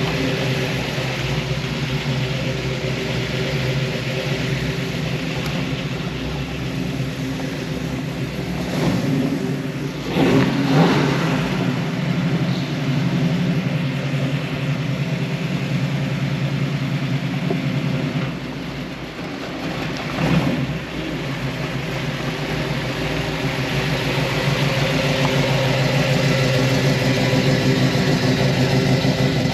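A 1973 Ford Mustang Mach 1's 351 Cleveland V8, breathing through long-tube headers and a stainless exhaust with Flowmaster mufflers, running steadily at low revs. Brief rises in engine speed come about ten seconds in and again about twenty seconds in.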